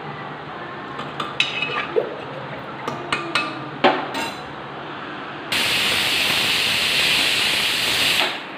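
Steel utensils and an aluminium pressure cooker lid clinking and knocking several times, then, about five and a half seconds in, a pressure cooker whistle hissing steam loudly and steadily for nearly three seconds before it cuts off: the cooker letting off pressure as the rice finishes cooking.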